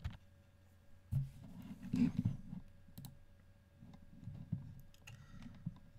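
Scattered clicks of a computer keyboard and mouse, with a short run of key presses about two seconds in.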